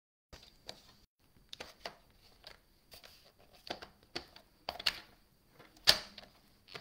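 Paper trimmer used on card stock: irregular clicks and short rustles as the carriage is slid along the clear rail and the sheet is handled, the sharpest click about six seconds in.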